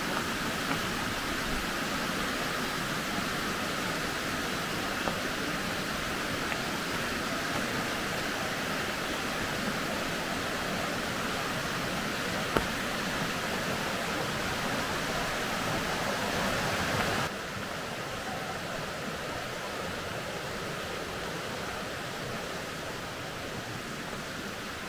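Steady rush of falling water from a waterfall and its stream. One short click a little past halfway; about 17 seconds in the rush drops suddenly to a quieter, duller level.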